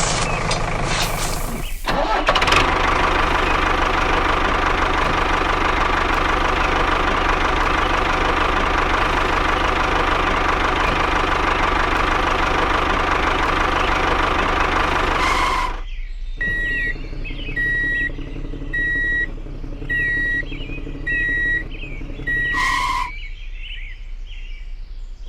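Vehicle engine noise running steadily with a held whine, cutting off abruptly about two-thirds of the way in. After the cut come six short high beeps about a second apart.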